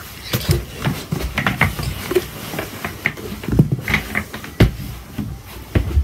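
Someone moving about close to the microphone: irregular knocks, taps and rustles, with a few heavier thumps of footsteps in the second half.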